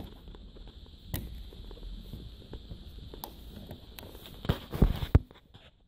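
Handling noise with scattered sharp clicks and a cluster of low knocks near the end, as things are moved around the plastic back cover of a flat-screen TV; a faint steady high whine runs underneath.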